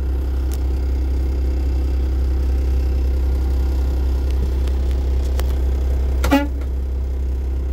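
2017 Kenworth T680's 12.9-litre turbocharged inline-six diesel idling steadily, heard from inside the cab as a low, even drone.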